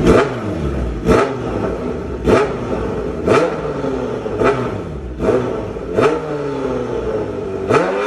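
Kawasaki Z900's inline-four revved through a loud C36 aftermarket exhaust with a wide outlet, in about eight quick throttle blips roughly a second apart. Each blip snaps up and falls back to idle.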